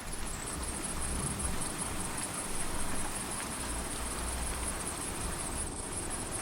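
Steady rain ambience: an even hiss of falling rain with a low, uneven rumble of distant thunder underneath.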